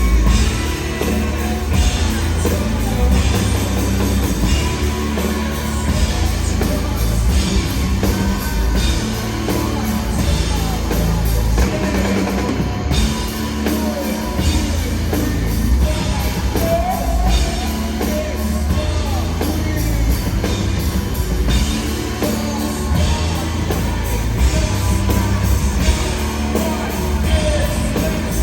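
Alternative rock band playing live: loud drum kit and strong bass with electric guitar, and singing at times.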